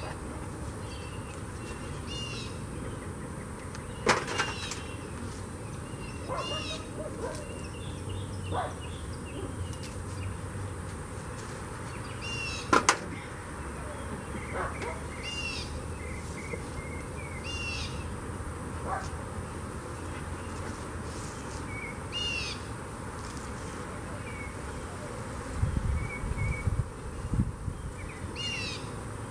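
A songbird singing the same short high phrase over and over, every couple of seconds, over a faint steady hum of bees. Two sharp knocks of concrete cinder blocks being set down, about four and thirteen seconds in, are the loudest sounds, and a few low thumps come near the end.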